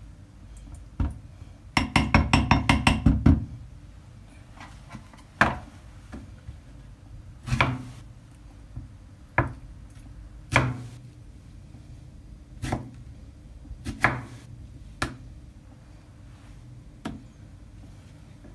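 Kitchen utensils knocking against dishes: a rapid run of about a dozen ringing clinks, then single knocks every second or two as food is served out.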